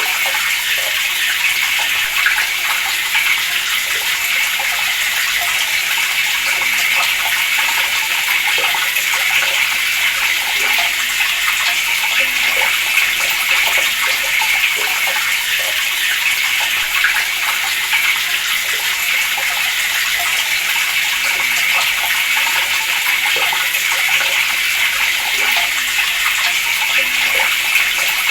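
Water running steadily from a tap, an even, continuous splashing stream.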